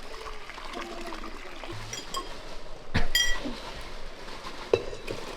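Kitchenware clinking: a sharp clink about three seconds in that rings briefly, with lighter clinks around two seconds and another near the end.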